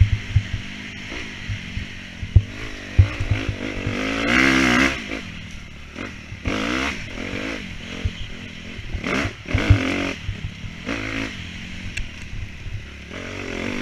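Dirt bike engine revving up and backing off in about five surges, the longest about four seconds in, while the bike is ridden hard on an enduro track. Short knocks and clatter from the bike run throughout.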